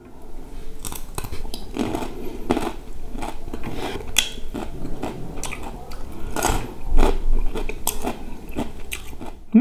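Close-miked chewing and biting of boiled okra dipped in black sambal: a run of many short mouth clicks and smacks.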